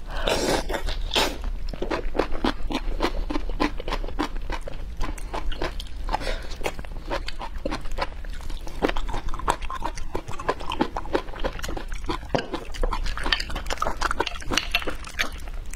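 Close-miked wet chewing and mouth smacking of a person eating ark clams (blood clams), a dense run of short wet clicks in quick succession.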